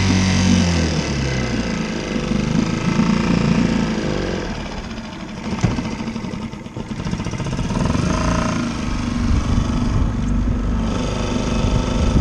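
Small 3.5 hp four-stroke outboard motor running on a jon boat. Its pitch drops in the first second as it is throttled back, and then it runs on at lower speed. There is a single sharp knock about five and a half seconds in.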